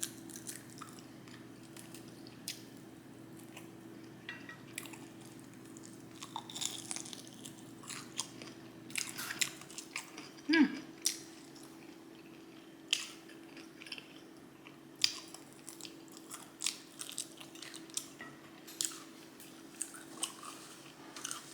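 A person chewing and biting food close to the microphone: irregular sharp mouth clicks and crunches, the loudest a little past the middle.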